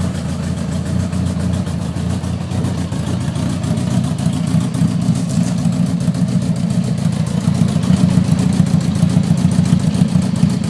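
1976 Honda Gold Wing GL1000's flat-four engine running at a cold idle through small sport-bike muffler cans, a steady, fairly mellow exhaust note. It gets a little louder about seven or eight seconds in.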